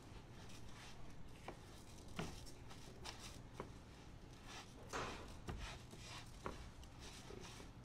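A cooking utensil stirring and tossing raw jasmine rice in a pan, giving irregular scrapes and knocks against the pan over a steady low hum, as the rice toasts in oil and chicken fat before the stock goes in.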